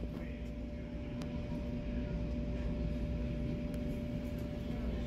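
Steady low drone of airport ramp machinery, with a constant mid-pitched whine over it and a few faint clicks.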